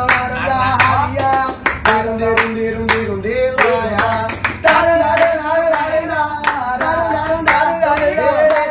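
Brazilian funk song playing: a sung melody over a beat of sharp, clap-like hits.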